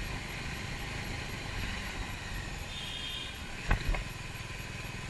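Motorcycle engine running steadily under way, a low pulsing rumble, with two sharp knocks close together about three and a half seconds in.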